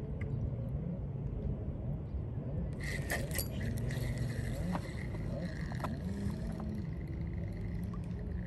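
Fishing line hissing off a spinning reel's spool during a cast, starting about three seconds in and dying away a few seconds later, over a steady low rumble.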